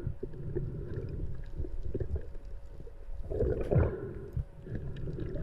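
Underwater camera audio: a low muffled rumble of water with scattered soft knocks as gloved hands handle a speared black grouper to bleed it at the gills. A louder rush of water noise comes about three and a half seconds in.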